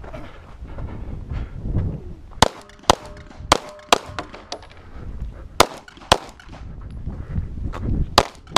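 Seven pistol shots, mostly fired in pairs about half a second apart, with a ringing tone after the first four that is typical of steel targets being hit. Low rumbling noise from wind or movement fills the gaps.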